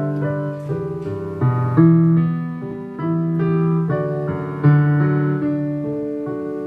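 Piano playing a melody over held low chords, new notes struck about once or twice a second and left to ring.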